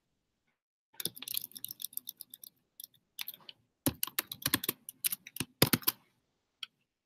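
Typing on a computer keyboard: quick irregular runs of key clicks starting about a second in, with short pauses, and one last single keystroke near the end.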